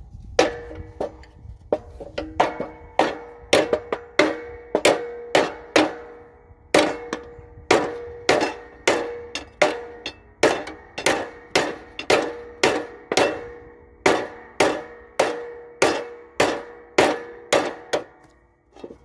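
Body hammer beating on the steel deck of a Cub Cadet LT1040 riding mower, about two blows a second with a short pause about six seconds in, each blow leaving the deck ringing. The bent deck is being hammered back so the blade stops catching on it.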